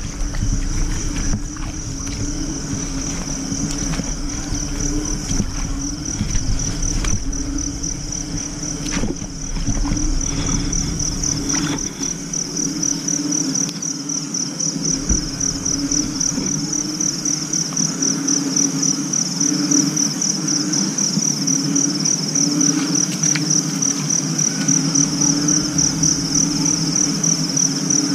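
Night chorus of crickets: a steady high trill, pulsing rapidly and unbroken, over a lower wavering pulsing chorus. Low rumbling and a few knocks come and go in the first half.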